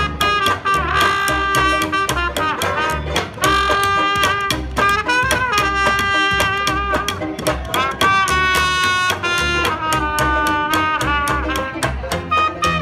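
Traditional jazz street band playing: trumpet and saxophone carry the melody over a steady beat from plucked upright bass and strummed guitar.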